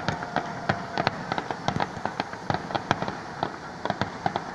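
Aerial fireworks going off in a rapid, irregular string of bangs and pops, several a second.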